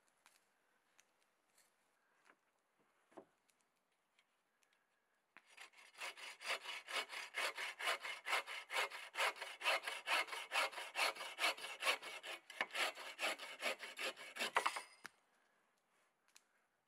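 Folding hand saw cutting through the end of a dead-wood floor pole, with steady back-and-forth strokes about three a second for roughly ten seconds before stopping abruptly. Faint clicks and taps come before the sawing starts.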